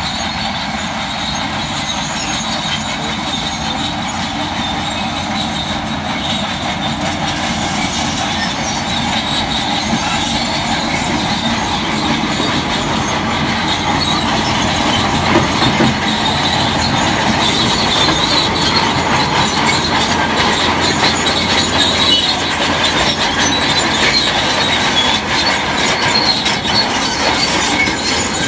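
Tracked earthmoving machine moving under power: diesel engine running with the squeal and clanking of steel crawler tracks, growing slowly louder.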